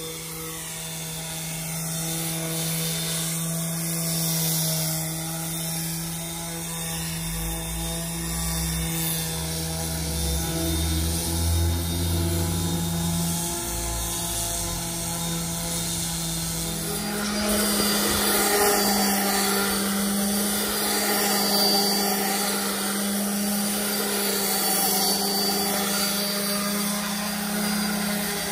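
Electric random orbital sander running steadily as it is worked over a cured concrete countertop, sanding it smooth before sealing. About two-thirds of the way in, the hum shifts to a slightly higher pitch as a second orbital sander runs on concrete.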